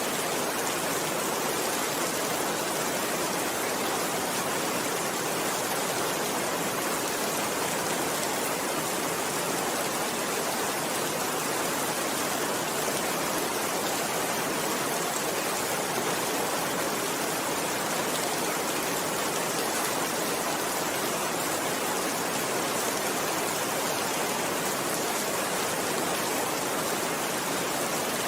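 Steady rainfall, an even hiss of raindrops that holds level throughout, with no thunder.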